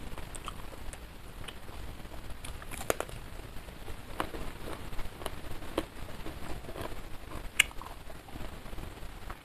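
Close-miked eating sounds of someone chewing food taken by hand: soft wet chewing and mouth clicks, with crisp crunches between them. The sharpest crunch comes about three seconds in and another near the end.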